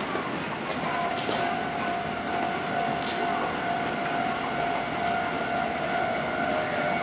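Kintetsu electric train approaching, its running noise rising slightly, with a steady high whine that sets in about a second in and a few sharp clicks.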